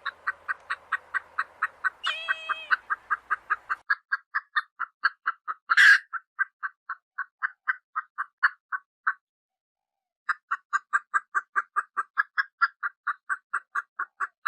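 Baby chicks peeping in a steady, rapid series of short calls, about four a second, with a brief pause near the end. A longer call comes about two seconds in and a louder, harsh call about six seconds in.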